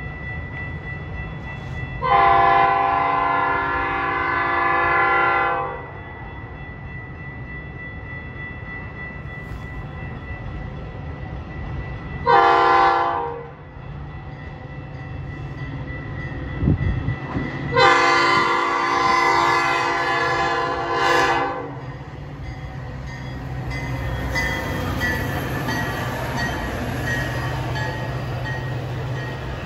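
Metra commuter train's horn sounding three blasts, long, short, long, as the train approaches. The rumble and rattle of the train's wheels on the rails then builds as it rolls in alongside.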